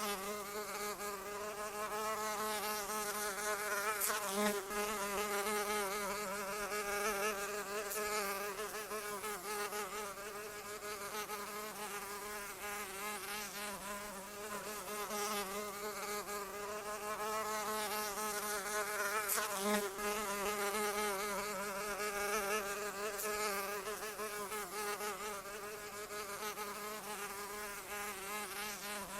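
A fly buzzing continuously, its pitch wavering up and down, with a few brief swells in loudness.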